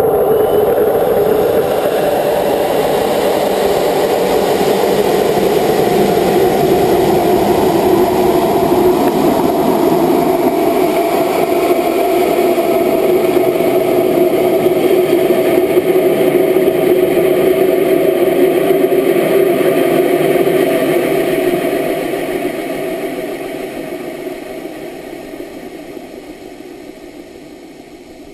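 The GoFast amateur rocket in flight, heard from a camera on its body: the solid-fuel motor and rushing air make a loud, steady noise with a droning tone. The noise fades away gradually over the last several seconds.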